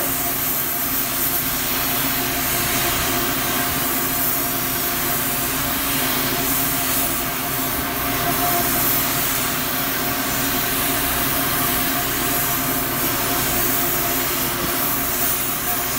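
Gas heating torch burning with a steady hiss as its flame heats a bent steel pipe red hot for straightening, over a steady machinery hum.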